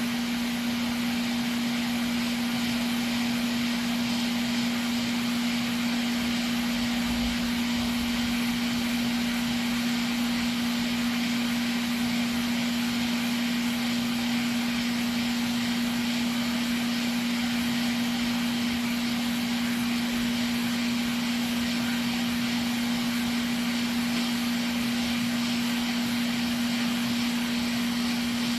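Hot air rework station blowing steadily onto the board, melting solder so that the new connector settles in by surface tension. A steady hum with an even hiss, unchanging throughout.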